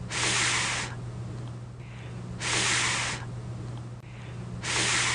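A voice making the phonics sound of the letter F, the breathy "fff" hiss of air through teeth and lip, three times about two seconds apart, over a steady low hum.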